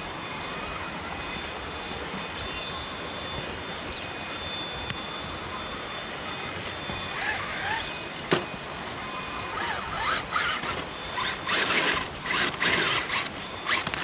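Radio-controlled scale rock crawler climbing over creek rocks: its electric motor and drivetrain whine in short bursts, and the tyres and chassis scrape and click on stone. The bursts come thick near the end, over a steady hiss of running water.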